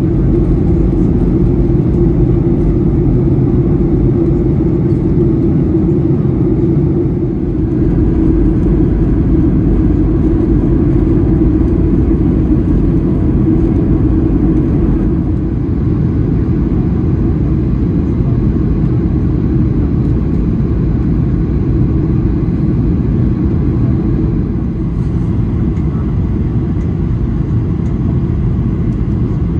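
Steady low rumble inside the cabin of a Boeing 737-800, the noise of its two CFM56-7B engines and the airflow past the fuselage, in flight.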